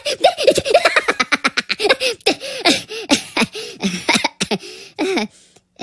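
Cartoon Minion voices giggling in rapid high-pitched bursts, then babbling in short gliding syllables.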